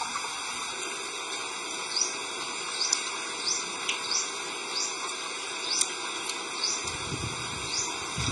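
Insects droning steadily in a high hiss, with short rising chirps every half second to a second. Soft low chewing sounds come in near the end.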